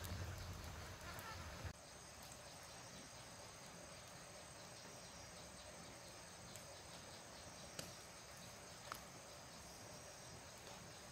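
Faint steady chorus of crickets and other insects, with a few light clicks in the second half. For the first second and a half a louder low rumble sits under it, cutting off suddenly.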